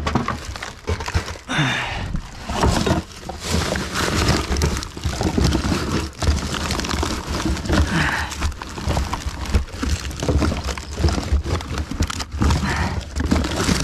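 Rubbish being rummaged through by hand in a dumpster: continuous rustling and crinkling of plastic and packaging, broken by frequent knocks and clatters of items being moved.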